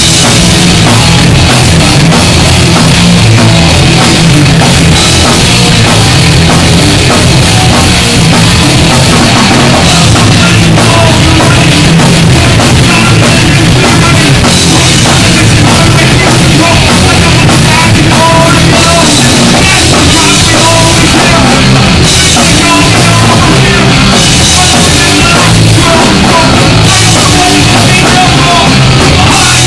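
A punk band playing live and loud: distorted electric guitars, bass and a pounding drum kit, with shouted vocals over the top.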